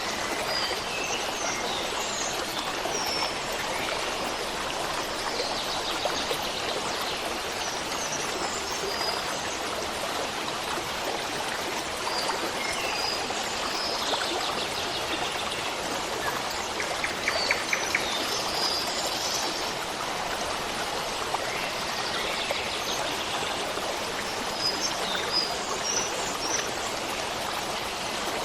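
Running stream water flowing steadily, with scattered short bird chirps over it and a brief rapid trill about two-thirds of the way through.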